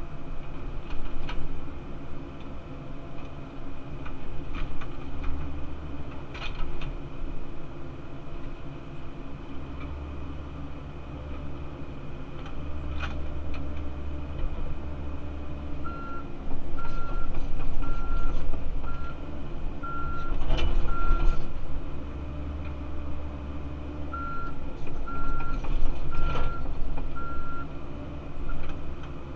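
Cat 308CR excavator's diesel engine and hydraulics running, heard from inside the cab, working harder in several stretches as it digs and dumps dirt, with a few sharp clunks. Partway through, a reversing alarm beeps steadily, about one beep every 0.8 s, in two runs.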